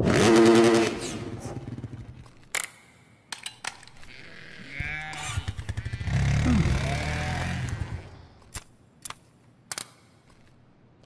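A motorcycle engine revving in the first second, then scattered clicks and knocks of small plastic parts being handled. A second small engine runs and revs from about six seconds in, and three sharp clicks come near the end.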